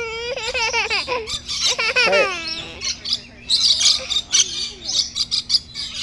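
Harsh, short screeches and chatter from a flock of lorikeets, densest in the second half. In the first half a small child gives two long, high-pitched squeals.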